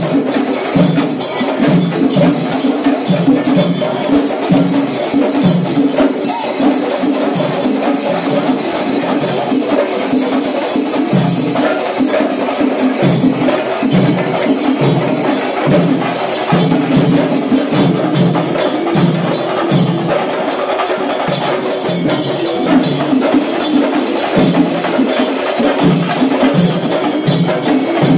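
Kerala temple festival percussion ensemble playing loud and without a break: drums beaten in a dense, driving rhythm under the steady clashing of hand cymbals.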